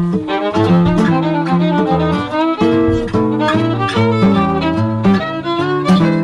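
Background music: a tune on fiddle over strummed acoustic guitar, with a steady beat of changing notes.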